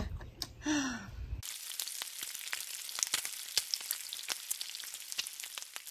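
Food frying on a griddle: a steady sizzle full of small irregular crackles and pops, cutting in abruptly about a second and a half in.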